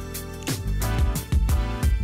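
Background music with a drum beat and pitched instrument notes.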